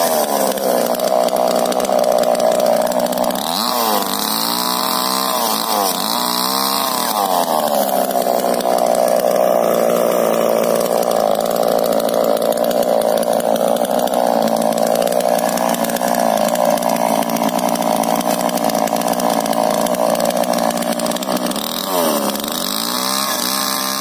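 Stihl two-stroke chainsaw running, its engine revving up and falling back several times in the first seven seconds and again near the end as it cuts through a felled rubber-tree log. It holds an even speed in between.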